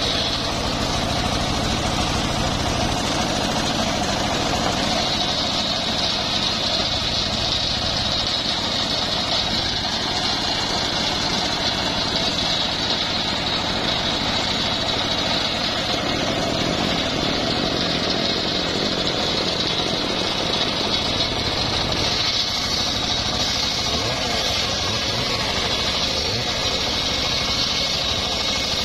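Homemade engine-driven circular sawmill running steadily, its large blade sawing through old mahogany logs.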